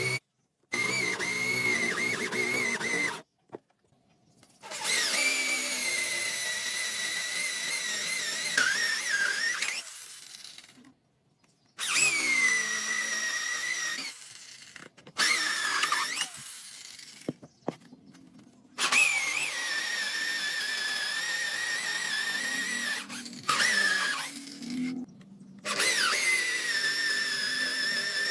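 Electric power tool's high-pitched motor whine as it works wood, in several runs of a few seconds broken by abrupt cuts. At the start of several runs the pitch drops as the tool takes up the load.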